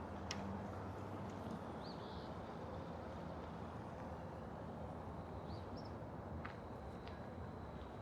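Steady outdoor wind noise rumbling on a microphone tucked inside a shirt, with a few short bird chirps and a faint thin high tone that sets in about five seconds in. A few light clicks are also heard.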